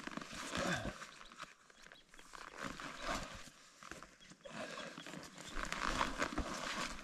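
Hikers' footsteps on a trail, with their gear rustling: uneven crunching steps that swell and fade.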